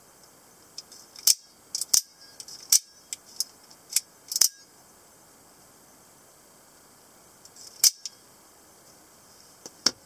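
Sharp metallic clicks from a Scarab D/E 2704 out-the-front automatic knife being handled. A quick run of about eight clicks comes over the first four and a half seconds, then, after a pause, one click near eight seconds and one more at the end.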